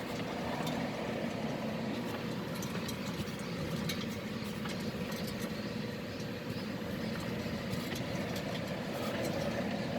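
Steady drone from the worn driver's-side wheel hub bearing of a 2008 Volkswagen Passat as the raised wheel spins. The noise is loud even at low turning speed, and the bearing is about to be replaced as a hub assembly.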